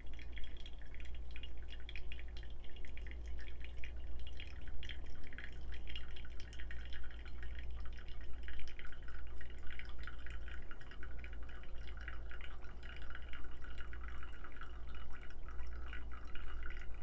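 Hot water from a gooseneck kettle pouring in a thin, steady stream onto a bed of coffee grounds in a paper-filtered pour-over dripper, a light splashing trickle: the main pour after the bloom. A steady low hum runs underneath.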